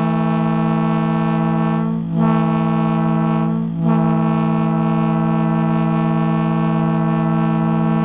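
Railroad air horn sounding a loud, steady chord. It is cut off briefly and comes back twice, about two and three and a half seconds in.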